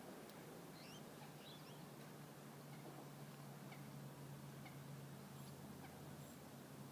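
Quiet outdoor ambience: faint, scattered bird chirps, a few in the first second and a half, over a steady low hum.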